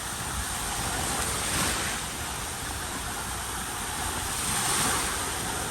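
Sea waves washing onto a beach: a steady rush that swells twice.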